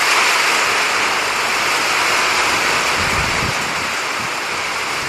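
Heavy rain falling steadily on a station platform and its canopy, a dense, even hiss.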